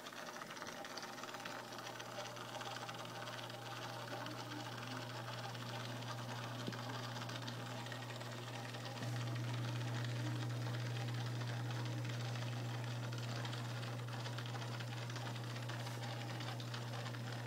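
Aquarium pump giving a low, steady electric hum that gets louder about halfway through.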